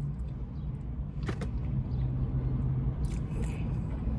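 Close-up chewing and mouth sounds of someone eating with a plastic fork, with a click about a second in and a few small smacks near the end, over a steady low hum in the car cabin.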